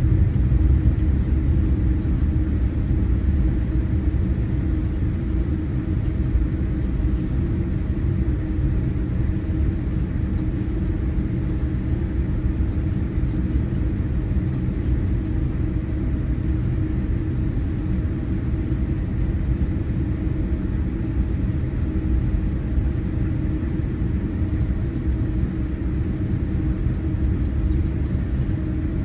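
Steady low rumble of a Boeing 787-8 jet airliner, its engines and rushing air running evenly without a break.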